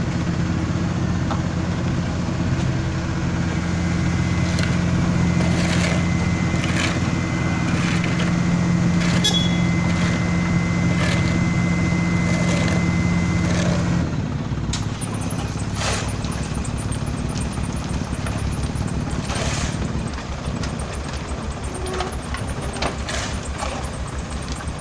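Wirtgen W1000 cold milling machine running while it strips asphalt: a steady diesel drone with scattered knocks and clatter. About halfway through, the drone drops and the sound turns quieter, with a fast low throb.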